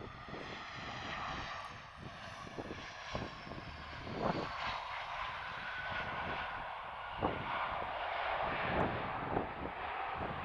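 Airbus A320 jet airliner passing on its landing approach: steady engine noise with a high whine falling in pitch over the first few seconds. Wind gusts buffet the microphone throughout.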